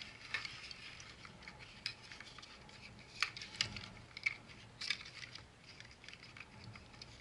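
Hard plastic parts of a Transformers action figure and its DX9 add-on upgrade pieces being handled and pressed together at the leg: irregular small clicks and taps.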